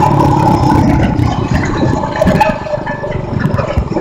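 Mini bike's Predator 212cc single-cylinder engine running on the move, its higher revs fading in the first second as it eases off. Wind rushes over the helmet microphone, with rattles and knocks from the bumpy road, and the sound dips briefly about two and a half seconds in.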